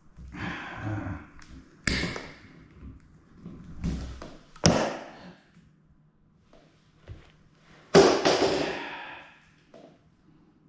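Romex strippers working the plastic sheath off a non-metallic electrical cable: a few sharp snaps from the tool, each followed by a short rasping, rustling pull. The loudest, longest pull comes near the end.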